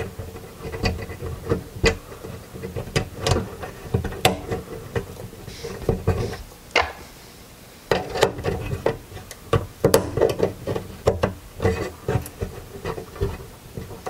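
Irregular small clicks, taps and rubbing of a plastic support bracket being handled and fitted behind an HDMI connector on a TV circuit board, busiest in the second half.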